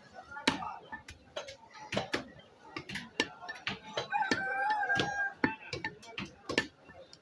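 Butcher's cleaver chopping beef on a block: sharp single chops, roughly one to two a second. About four seconds in, a rooster crows once for about a second.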